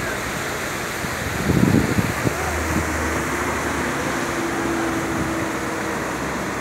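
Steady rush of floodwater on a flooded street, with a brief louder rumble about a second and a half in. From about two seconds on comes the steady low hum of a bus engine as the bus ploughs through the water.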